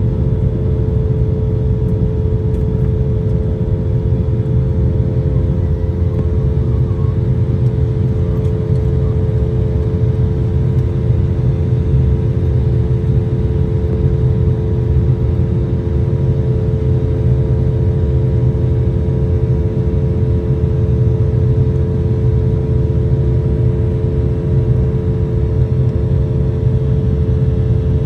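Steady cabin noise of a jet airliner: a low rumble of engine and air noise with a constant hum of steady tones, unchanging throughout.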